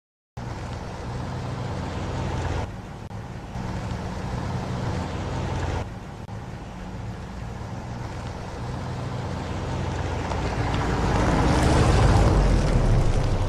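Cargo truck engine running as the truck drives along a road: a steady low engine hum with road and wind noise. It comes in after half a second of silence and grows louder, loudest around twelve seconds in as the truck passes close.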